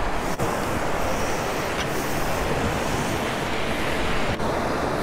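Steady rushing noise of wind buffeting the microphone, with surf breaking on the beach.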